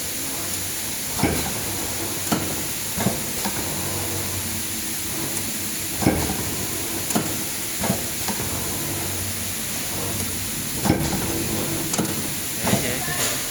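CNC 2D wire-bending machine (ZD 2D 308) running with a steady hum and hiss, with about a dozen sharp, irregular clacks as it feeds and bends steel wire.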